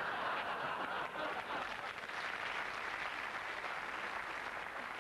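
Studio audience applauding after a punchline: a steady, dense clatter of many hands clapping.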